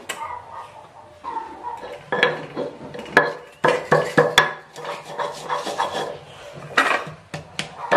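Stone pestle knocking and grinding garlic cloves and salt in a flat stone mortar (Indonesian cobek and ulekan), in a run of irregular knocks that starts about two seconds in.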